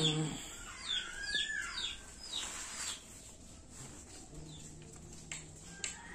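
Young chick peeping: a string of short, high, falling chirps that fade out about three seconds in.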